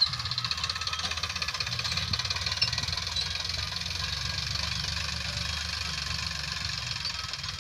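Sonalika tractor's diesel engine running steadily as it pulls a tillage implement through the soil, a rapid clatter over a low rumble.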